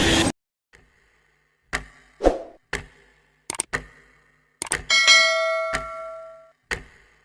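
Game sound effects: the preceding sound cuts off suddenly, followed by a few short clicks and pops. About five seconds in comes a bell-like ding that rings and fades over about a second and a half.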